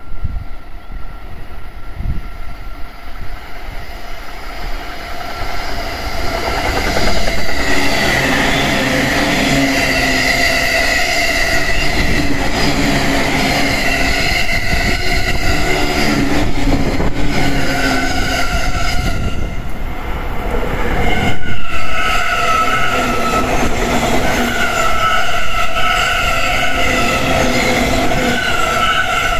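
JR East commuter electric trains passing close by at speed, an E231-series Joban rapid train and then an E531-series train. The first train's noise builds over several seconds as it approaches, then holds loud and steady: wheel-on-rail rumble with a whining tone over it. The noise dips briefly about two-thirds of the way through as one train gives way to the next.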